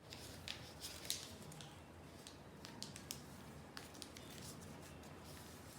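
A square sheet of origami paper being handled and creased by hand during a petal fold: faint rustling with irregular sharp crinkles.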